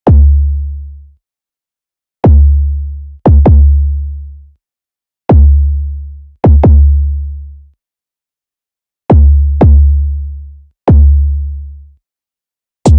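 Music intro: about ten deep drum-machine bass-drum hits in an uneven pattern, each with a long low tail that dies away into silence. The full beat comes in right at the end.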